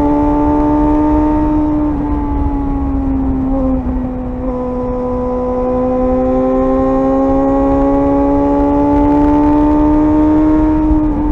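Suzuki GSR 600's inline-four engine running at high revs under way, its pitch climbing slowly, with two brief dips about two and four seconds in. Low rush of wind underneath.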